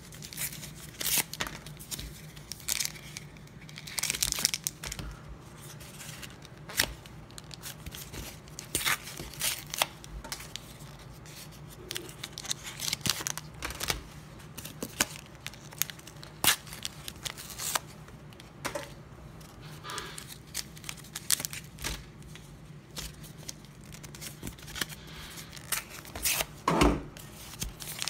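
Cardboard-and-plastic blister packaging being torn open and crinkled by hand to free trading-card booster packs: a long run of irregular sharp rips and crackles.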